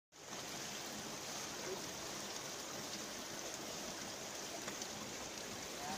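Steady, even rushing of water from a waterfall and its stream.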